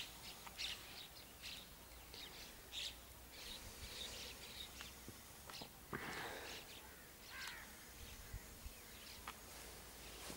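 Faint, scattered bird chirps over quiet rural background hiss, with a brief louder noise about six seconds in.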